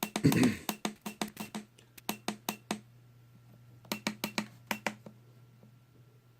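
Buttons being pressed on the Silca V8/X6 key cutting machine's keypad: quick runs of sharp clicks in three bursts, over a low steady hum.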